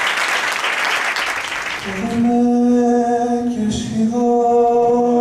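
Audience applause dying away, then a man's voice singing one long held note, breaking off briefly about halfway and taking the note up again.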